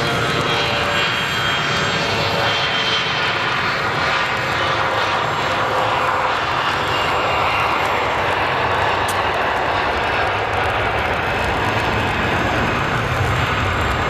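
A CRJ-900 regional jet's two rear-mounted GE CF34 turbofans running at takeoff thrust as it accelerates down the runway and rotates near the end. Loud steady jet noise, with a faint whine of several tones in the first few seconds that gives way to a broader rush.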